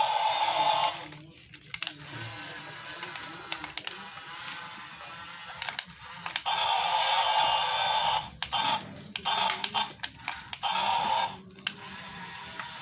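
Small electric gear motors of a toy remote-control mini excavator whining in short runs as the controls are worked: one at the start, a longer one about halfway through, then several quick bursts.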